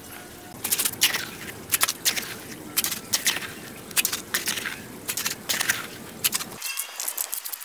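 Steel trowel scraping and pressing wet cement mortar into a wooden form: a run of short, sharp scraping strokes, roughly one to two a second.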